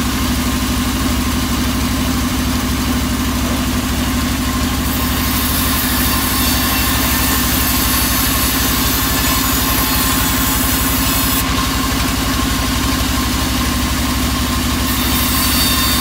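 Sawmill band saw running steadily with a constant mechanical hum. A brighter hiss joins in about five seconds in, drops away, and returns near the end.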